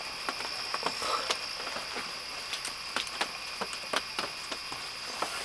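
Rain dripping and pattering in irregular drops, over a steady high-pitched drone of night insects.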